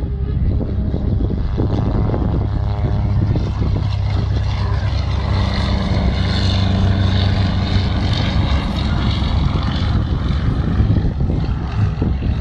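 Single-engine propeller aerobatic plane flying a display, its engine and propeller drone rising and falling in pitch as it manoeuvres, over a steady low rumble.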